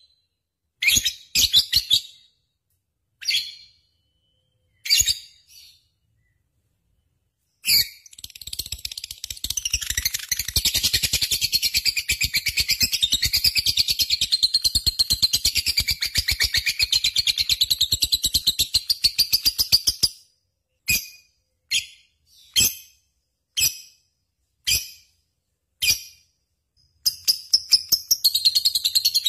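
Lovebird singing: a few separate shrill calls, then a long unbroken rapid chattering trill lasting about twelve seconds. Single chirps about a second apart follow, and another fast run starts near the end.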